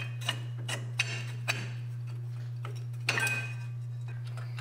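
Rear parking-brake shoes and their springs of a 2002 Chevy Suburban clicking and clinking against the hub and backing plate as they are fitted by hand. A few light metallic ticks come in the first second and a half, then a brief rattle of ringing clinks about three seconds in, over a steady low hum.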